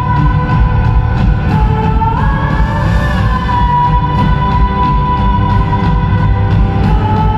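Live band music: drums and bass under a held, sustained melody line that bends up and back down twice.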